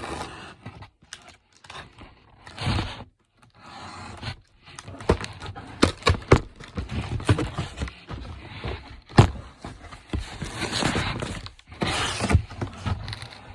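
Cardboard box being cut open: a blade scraping and slitting through it in irregular strokes, with sharp clicks and knocks as the box is handled.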